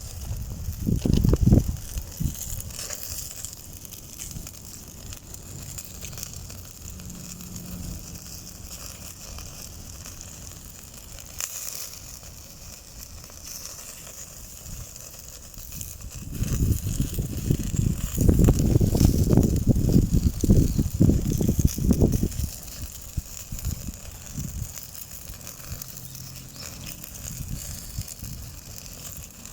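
Bamboo charcoal burning in a fire pit, a steady hiss with faint crackles. Low rumbling buffets, the loudest sound, come about a second in and again for several seconds past the middle.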